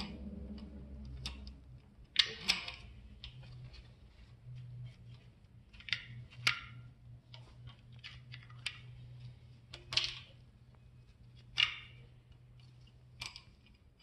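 Metal clinks and light rattles of a Ford 4.6 four-valve modular engine's primary timing chain being worked off its sprockets by hand, a sharp clink every few seconds.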